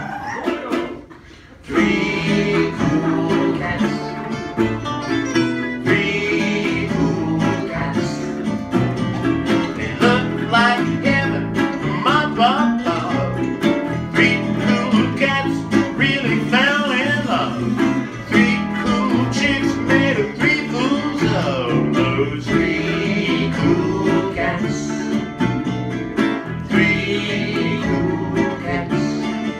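Live acoustic swing trio playing: a strummed resophonic ukulele, an acoustic guitar and an acoustic bass guitar, with a lead singer and harmony vocals. The music stops briefly about a second in, then comes back.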